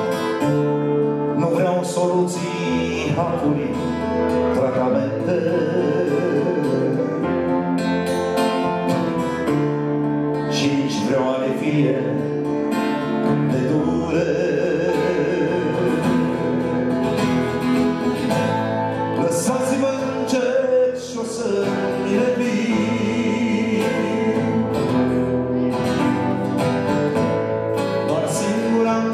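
Live folk song: strummed acoustic guitar and held keyboard chords, with a man singing over them.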